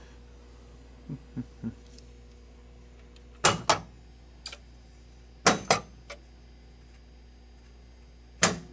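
Pinball playfield switches being worked by hand during a switch test: three soft knocks, then three pairs of sharp clicks about two seconds apart, over a low steady hum.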